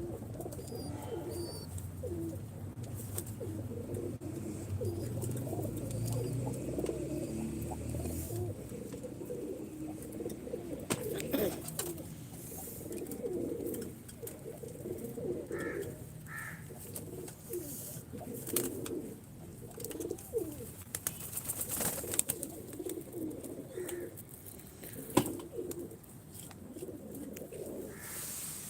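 Several domestic pigeons cooing over one another in a continuous, overlapping chorus, with scattered sharp clicks and knocks.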